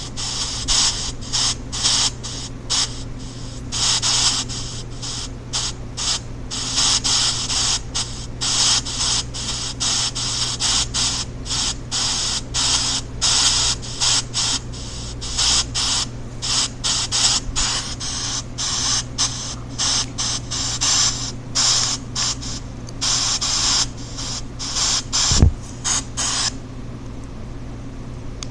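Pink noise chopped into rapid, irregular bursts by an EVP ghost-box app, the hiss switching on and off and swinging between loud and soft. A steady low hum runs beneath, and a single thump sounds about 25 seconds in.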